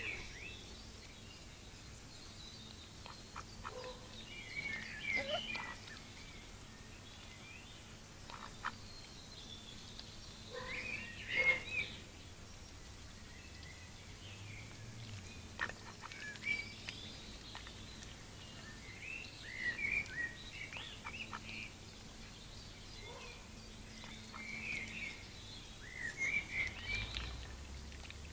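Intermittent bird chirps and calls, with short clicks of a female mallard's bill pecking at the ground and dabbling in a water dish close to the microphone.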